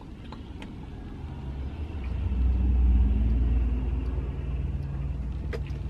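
Low rumble of a passing motor vehicle, heard from inside a car's cabin. It swells about two seconds in and then fades.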